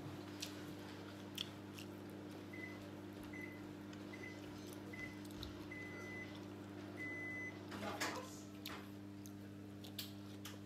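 A run of about six faint electronic beeps at one pitch, close to a second apart, the last two held longer, from a household appliance's beeper, over a steady low hum. A short rustling clatter comes about eight seconds in, among a few soft clicks of eating.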